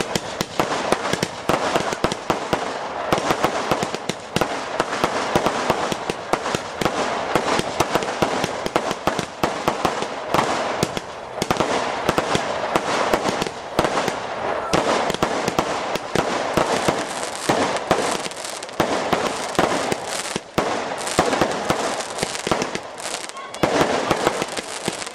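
Fireworks display: many bangs in quick succession over a constant crackle, with no break.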